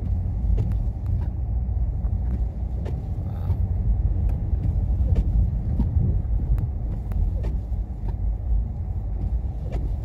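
Rear-wheel-drive Dodge driving on a snow-covered road, heard from inside the cabin: a steady low rumble of engine and tyres, with a few faint clicks.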